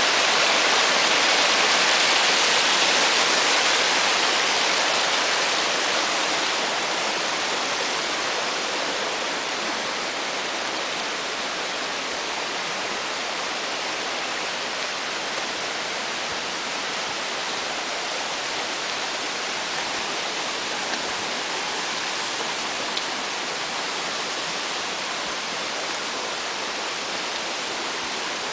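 Rushing water of a mountain stream, a steady hiss a little louder in the first few seconds and then easing slightly.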